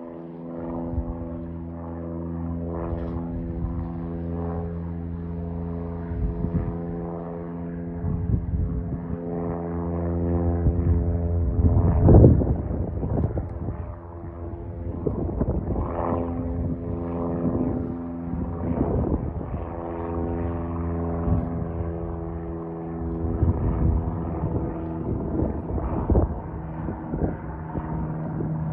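Cessna 172P Skyhawk's four-cylinder Lycoming engine and propeller droning steadily as the plane flies overhead after takeoff. Several brief rumbles break over the drone, the loudest about twelve seconds in.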